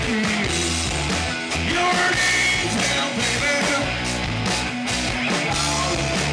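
Live rock band playing: electric guitars, bass and drums with a man singing into a handheld microphone.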